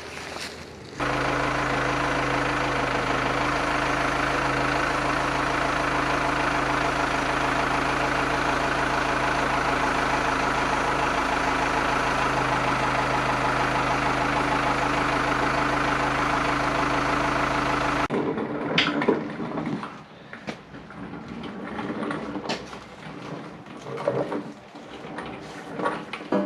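An engine running steadily at idle, starting and cutting off abruptly. After it come irregular metal knocks and clanks.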